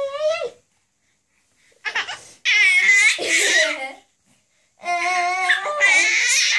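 A baby laughing and squealing in two high-pitched bursts, one about two seconds in and another near the end, as she is played with.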